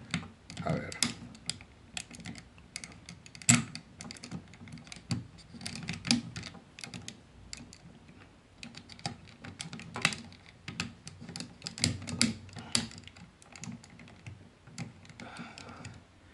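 Hard plastic parts of a Takara Masterpiece MP-36 Megatron transforming figure clicking and clacking irregularly as they are turned and unfolded by hand, with a few sharper knocks.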